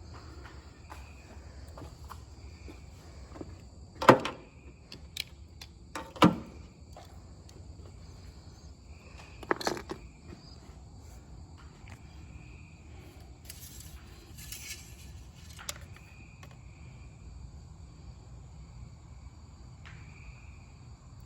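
Crickets chirping steadily, with three loud sharp knocks about 4, 6 and 10 seconds in and a few smaller clicks.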